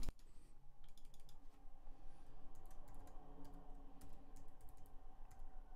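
Typing on a computer keyboard: a faint, irregular run of key clicks as a word is typed.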